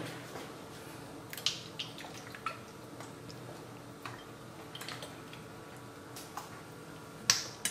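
A few light, scattered ticks and taps as a small bottle of rice vinegar is shaken and drizzled over a salad bowl, the sharpest near the end, over a faint steady hum.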